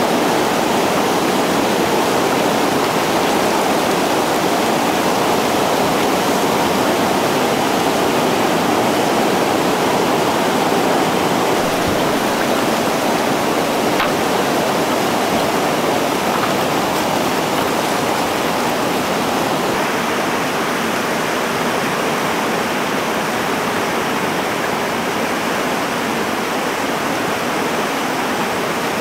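Whitewater rapid rushing steadily as the river pours over a rocky ledge drop, a continuous noise of falling and churning water, a little softer in the last third.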